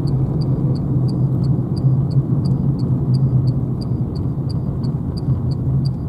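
Steady low road and tyre rumble inside the cabin of a Renault Zoe electric car on the move. Over it, the turn indicator ticks evenly about three times a second.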